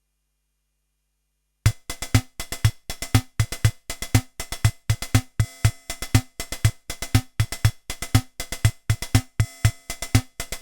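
Yamaha PSR-21 portable keyboard's built-in rhythm section playing a drum-machine pattern of bass drum and snare alone, with no melody or chords. It starts after about a second and a half of silence.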